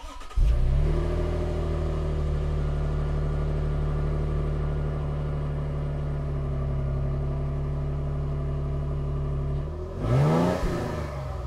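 Toyota Tundra's twin-turbo V6 breathing through a CORSA 3-inch cat-back exhaust. It fires up with a short surge of revs, settles into a steady idle, then gives one quick throttle blip about ten seconds in.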